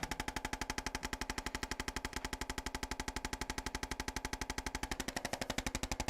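Handheld percussion massager pounding on a patient's back: a very fast, even train of knocks, more than ten a second, over a steady motor hum.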